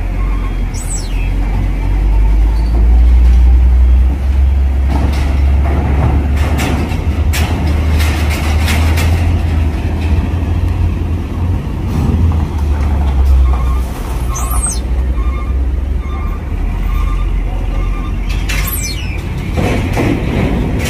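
Heavy diesel vehicles (buses and trucks) running close by with a loud, steady low rumble, louder in the first half. A few short high, falling hisses or squeals from air brakes cut in about a second in and twice near the end.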